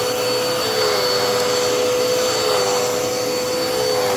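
Dirt Devil Endura Reach vacuum cleaner running at full speed, a steady motor whine with a slight waver in pitch.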